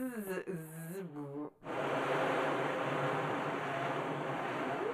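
Animated-film soundtrack: a wavering, voice-like whine that is cut off abruptly about a second and a half in, then a steady rushing hiss.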